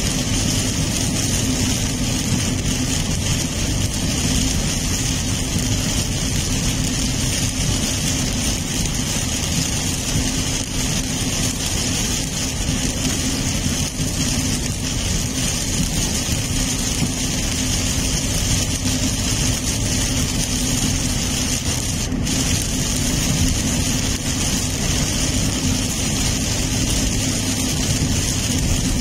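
Steady rushing noise inside a moving car's cabin in heavy rain: rain hitting the car and tyres hissing on the wet road, over a low steady hum from the car.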